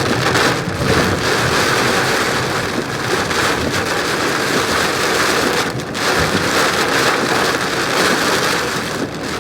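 Rain hitting a moving car's roof and windshield, a dense steady hiss with the car's road noise underneath.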